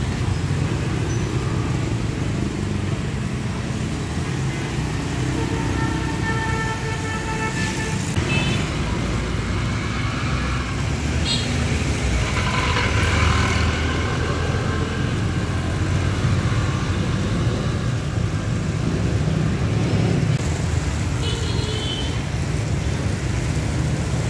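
Steady road-traffic noise, a continuous low rumble of passing vehicles, with a couple of short pitched sounds rising above it.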